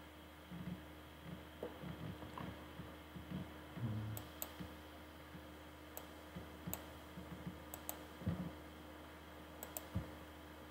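Computer mouse clicking: several sharp clicks, some in quick pairs like double-clicks, over a steady low electrical hum, with a few soft low thumps.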